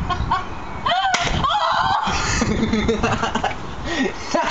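A toy paintball gun shot: one sharp snap about a second in, among excited shouting voices.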